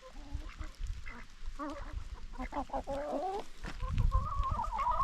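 Farmyard poultry calling, with ducks among them: a run of short nasal calls in the middle, then a longer wavering call in the last second or so. A low rumble sits underneath near the end.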